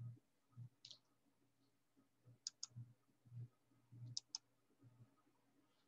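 Faint computer mouse clicks, including two quick double-clicks about two and a half and four seconds in, with soft low thuds in between.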